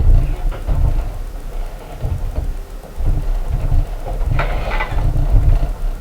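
Heavy, deep thuds and bumps from the floor above coming through the ceiling, a string of uneven knocks, with a brief scrape or rattle about four and a half seconds in.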